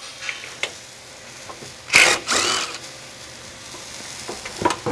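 A cordless power tool spinning out a skid plate bolt in one short whirring burst about two seconds in, with light metallic clicks and taps before and after.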